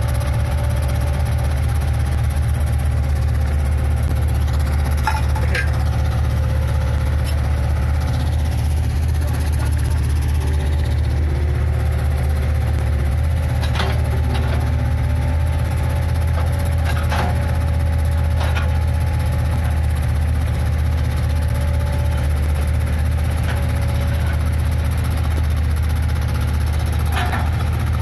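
Diesel engines of a Case 580 Super L backhoe loader and a small tandem road roller running steadily with a deep, even rumble, a few short knocks over it.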